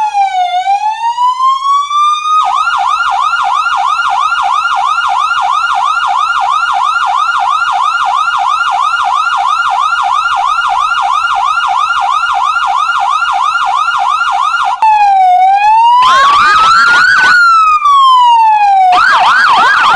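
Electronic emergency-vehicle siren switching between modes. First comes a slow wail that falls and then rises. Then a rapid yelp of about three sweeps a second runs for about twelve seconds, followed by another slow rising-and-falling wail with a harsher sound briefly over it, and the fast yelp returns near the end.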